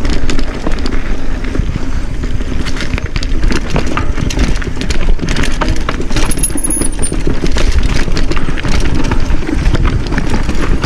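Mountain bike rattling down a rocky, technical trail: tyres knocking over rock chunk and the bike clattering, with a constant run of rapid clicks and knocks.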